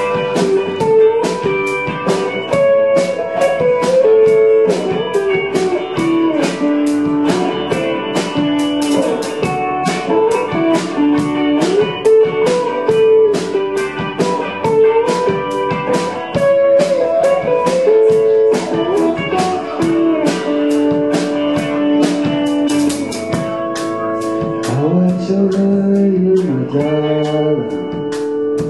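A band playing a bluesy rock song: guitar and drum kit over a steady cymbal beat, with a lead line that bends up and down in pitch and drops lower near the end.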